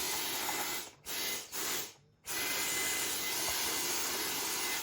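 Handheld vacuum cleaner running with a steady hiss as it cleans out a Roomba part. The sound drops out abruptly three times in the first half and stops near the end.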